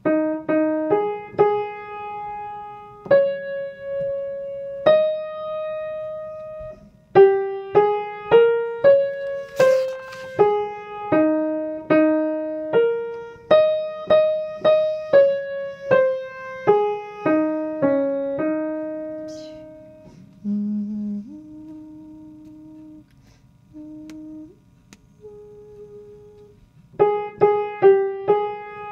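Piano playing the soprano line of a choral piece, a single melody one note at a time, dropping to a quieter, lower passage about two-thirds through before the melody picks up again near the end.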